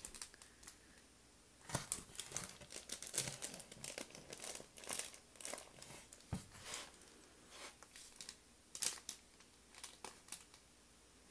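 Faint, irregular rustling and crinkling of fabric as a baby moves and paws on a tummy-time pillow and ball, with a few sharper rustles now and then.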